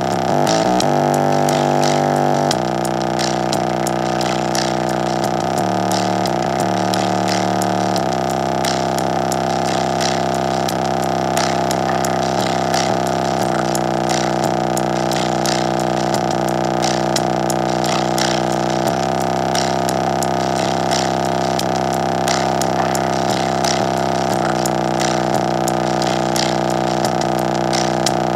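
Bass test music played loud on a JBL Charge 4 portable Bluetooth speaker in its low-frequency mode, its exposed bass driver pumping. A sustained buzzy bass line steps to a new pitch every few seconds under an even ticking beat, with a falling pitch sweep near the start.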